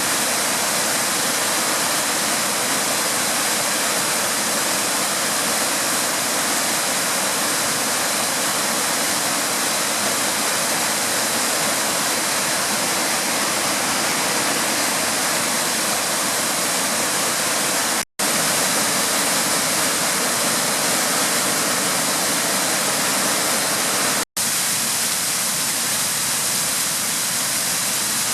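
Waterfall: a steady, loud rush of white water falling over the rocks, cut to silence for an instant twice, about two-thirds of the way through and again near the end.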